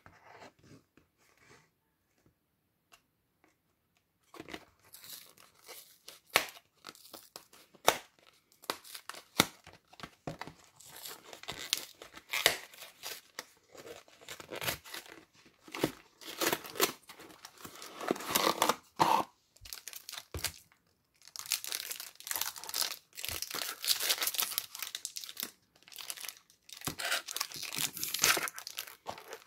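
Cardboard film box being torn open, then the foil wrapper of a Polaroid 600 instant film pack crinkling and tearing, with irregular rustles and sharp clicks. It begins after about four seconds of near silence and grows denser toward the end.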